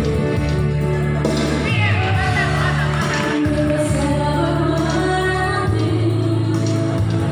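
A woman singing into a microphone over amplified backing music with sustained bass notes; her wavering melody is clearest from about two seconds in.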